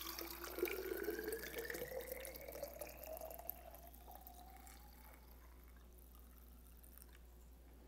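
Sugar-water nectar poured from a measuring cup through a funnel into a hummingbird feeder bottle: a trickling pour whose pitch rises steadily as the bottle fills. It stops about three and a half seconds in.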